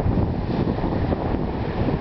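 Wind buffeting the microphone over the rushing wash of ocean surf breaking on rocks, an even, continuous noise without distinct crashes.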